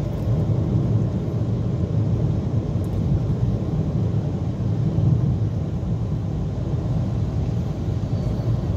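A car driving along a paved road, heard from inside the cabin: a steady low rumble of engine and tyre noise.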